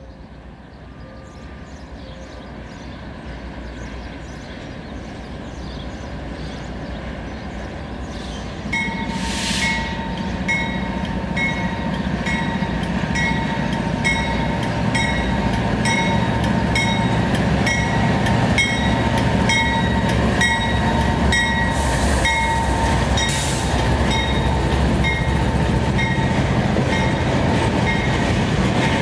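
Diesel freight locomotive approaching and passing, its engine rumble growing steadily louder, with a bell ringing at a regular beat, about one and a half strikes a second, from about nine seconds in. Near the end the railcars follow with wheel clatter on the rails.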